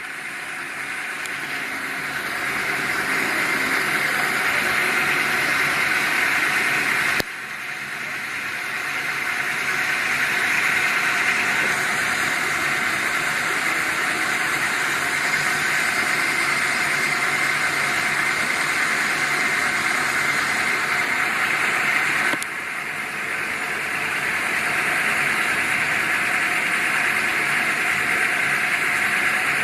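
Hardinge HC CNC lathe running: a steady, hissing machine noise that builds up, cuts back abruptly about seven seconds in and again past twenty seconds, then builds up again.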